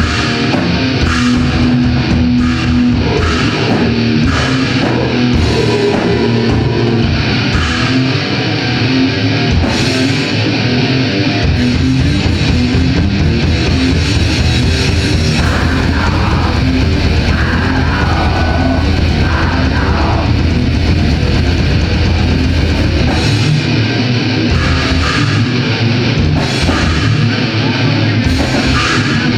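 Death metal band playing live: distorted electric guitar and drum kit, loud throughout. From about twelve seconds in to about twenty-three seconds, the low end turns into one continuous pounding, with no gaps.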